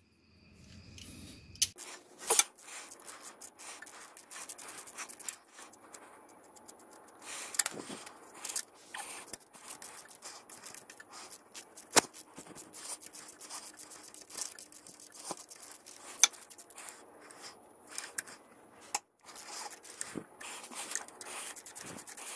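Hand ratchet clicking in quick runs as the bolts of a car's rear motor mount are backed out, with a few louder single metal clicks and knocks between the runs.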